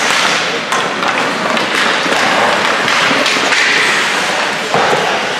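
Ice hockey play: a steady scraping hiss of skates on the ice, with sharp knocks of sticks on the puck, one about three-quarters of a second in and another near the end.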